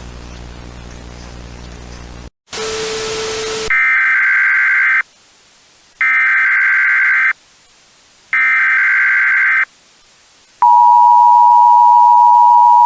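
Emergency Alert System broadcast tones. A low staticky hum and a short burst of noise give way to three one-second screeching SAME data bursts, about a second apart. About ten seconds in, the steady two-tone EAS attention signal starts.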